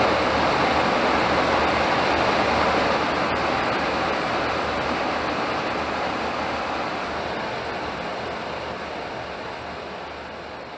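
Steady rush of air and engine noise inside an aerial refueling tanker in flight. It steps down slightly about three seconds in and fades away gradually toward the end.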